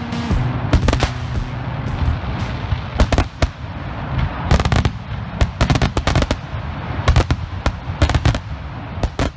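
Shotgun Fireworks Rowdy Rampage multi-shot firework firing: sharp bangs of aerial breaks come in quick clusters over continuous crackling from its crackling stars.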